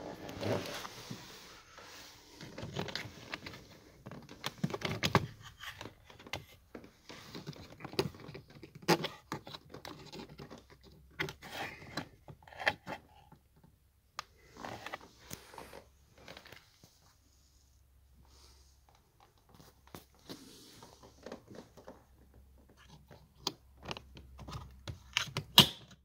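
Hands working the plastic trim panel and OBD2 port cover under a Ford Mondeo's dashboard: irregular rustles, scrapes and clicks of hard plastic. A sharp snap near the end as the panel is pushed back into place.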